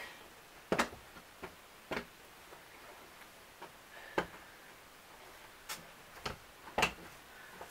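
Adjustment dials on a Dritz Twin-Fit dress form clicking as they are turned to expand the form: a series of sharp, irregularly spaced clicks.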